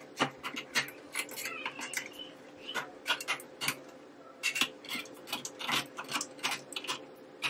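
Kitchen knife cutting an onion: irregular sharp taps of the blade, about three a second.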